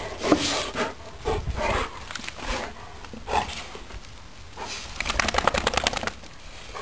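A Rottweiler and a Dogo Argentino play-fighting: irregular breathy panting and scuffling, with a quick run of short scuffs from paws on grass and gravel near the end.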